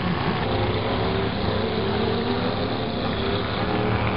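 Engines of several old demolition-derby pickup trucks running together, a steady, overlapping engine drone whose pitch drifts a little as the drivers work their throttles.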